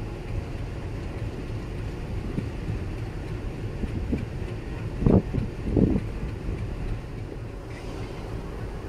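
Wind buffeting the microphone: a low, uneven rumble with two heavier thumps a little past halfway, under a second apart.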